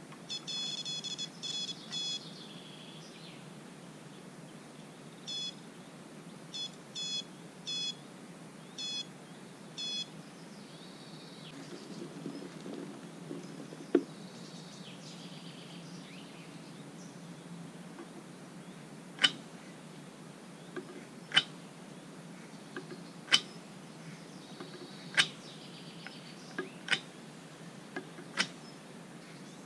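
Electronic carp bite alarms on a rod pod beeping as the lines are handled: a fast run of beeps, then single beeps every second or so. From about halfway on, a series of sharp clicks about every two seconds, louder than the beeps.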